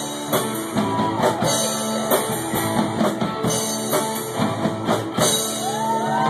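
Live rock band playing, guitar over a drum kit keeping a steady beat; near the end a held guitar note bends upward.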